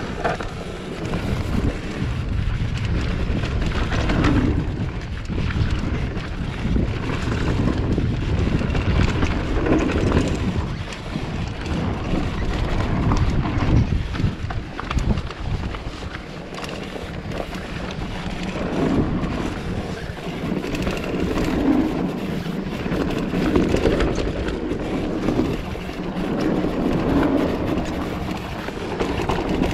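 Wind rushing over the microphone and tyres rolling on a dirt trail as a mountain bike is ridden at speed. It is a steady noise that swells and eases.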